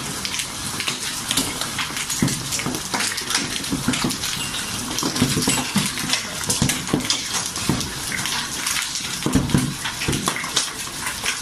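Heavy rain mixed with hail pelting down, a dense hiss with many sharp hailstone impacts throughout.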